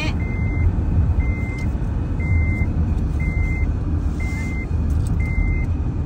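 Low rumble of a car driving, heard from inside the cabin, with a high electronic beep repeating six times, about once a second.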